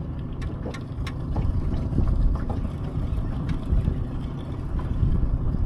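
Uneven low rumble of a fishing boat on the water while trolling, with a few scattered light clicks.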